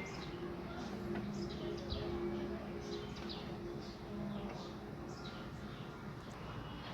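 Small birds chirping in the background: short, high, downward-sliding chirps repeated about twice a second, over a faint steady low hum.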